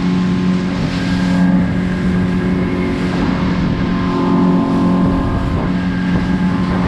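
A fishing boat's engine running steadily under way, holding an even pitch, with a broad rushing noise over it.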